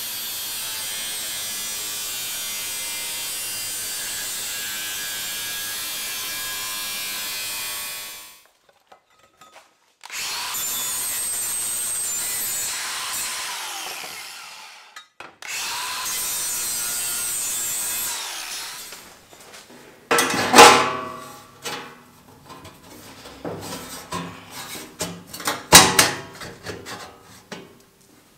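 Angle grinder with a flap disc sanding stainless steel sheet in three runs, the first about eight seconds long, each ending as the disc spins down. Then a string of sharp metal clanks and knocks as stainless steel sheet parts are handled and fitted together, two of them much louder than the rest.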